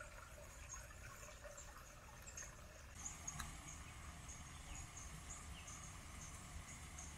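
Faint trickle of shallow creek water running over rocks and a small weir spillway. Short high chirps repeat about twice a second over a low rumble.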